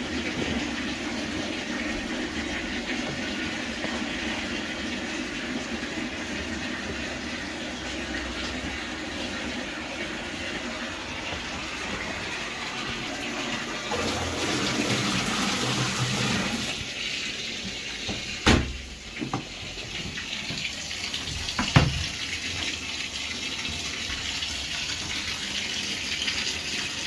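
Steady rush of running water, louder for a few seconds about halfway through, with two sharp knocks later on.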